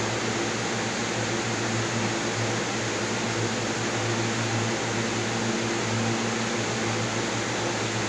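A steady hiss with a low hum and fainter higher hum tones under it, unchanging throughout.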